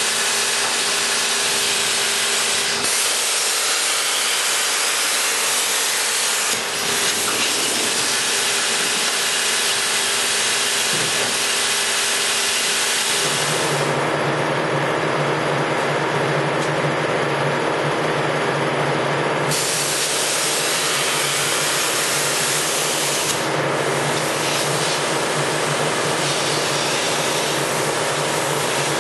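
Plasma cutter hissing steadily and loudly as it cuts thin-gauge stainless steel sheet. A little under halfway through the sound shifts, taking on a low hum.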